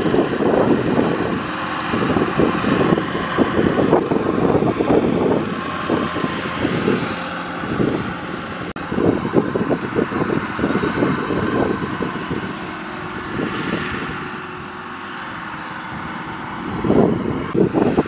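Kubota DC-105X tracked combine harvester running as it moves across a rice field, a steady diesel machine noise. Wind buffets the microphone in irregular gusts, easing for a few seconds near the end.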